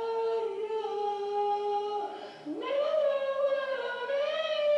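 A woman singing solo in long drawn-out notes: one held note, a short break about two seconds in, then a second note that swells and climbs in pitch.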